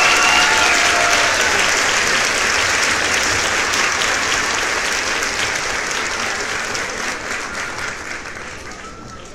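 A crowd applauding, a dense patter of many claps with a few whoops right at the start, fading out gradually toward the end.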